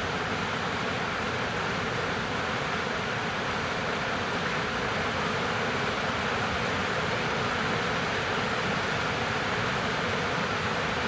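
Heavy rain falling steadily, an even hiss of downpour with no let-up.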